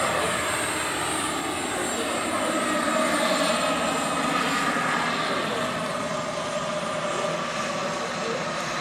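Giant-scale radio-controlled model AgustaWestland AW139 helicopter flying past and away: a steady whine with rotor noise, its pitch sliding slowly lower.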